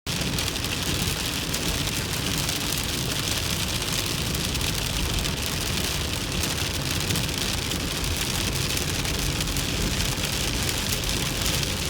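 Heavy rain hitting a car's roof and windshield while it drives: a steady, dense hiss of drop hits with low road noise underneath.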